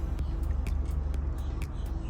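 Outboard motor running at idle with a steady low rumble and a regular ticking about four times a second.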